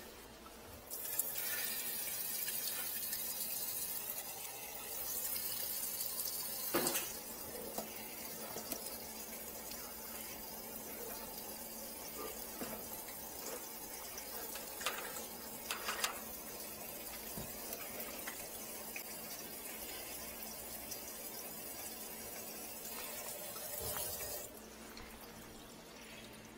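Tap water running steadily into a stainless-steel sink, with a few light knocks. It stops about two seconds before the end.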